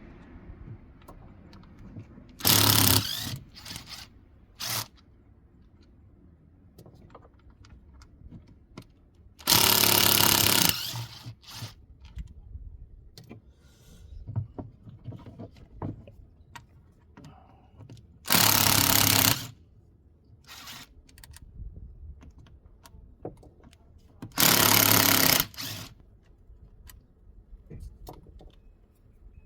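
Yamaha SJ700 jet ski's two-stroke twin turned over by its electric starter in four short bursts of about a second each, the engine not catching. Small clicks and handling noises fall between the bursts.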